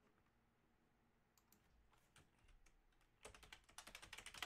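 Faint typing on a computer keyboard: a few scattered key clicks, then a quick run of keystrokes starting about three seconds in.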